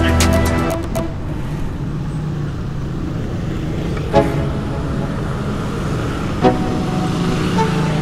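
Background music cuts off about a second in, leaving a Vespa scooter engine running with road and wind noise while riding in slow traffic. Short horn toots sound about four and six and a half seconds in, with a fainter one near the end.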